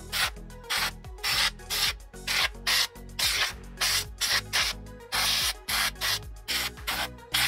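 Hand-held air blow gun on a compressor hose, fired in a rapid string of short hissing blasts of compressed air, roughly two a second, each under half a second, blowing dust out of a PC case and its fans.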